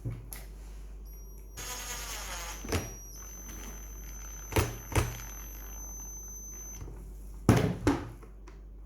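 Sharp knocks and clicks from a replacement toggle latch being handled and set against a plastic tool case, the loudest pair near the end, with a short rough buzz about two seconds in.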